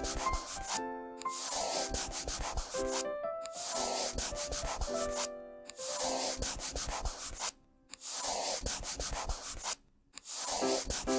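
Marker colouring on paper: rapid back-and-forth scratchy strokes in runs of about two seconds, broken by short pauses, over a light children's tune.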